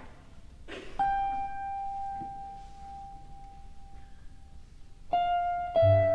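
Sparse contemporary chamber music: a single high struck note rings out about a second in and slowly fades away, then two more notes sound near the end, the last with a low sustained bass note entering beneath it.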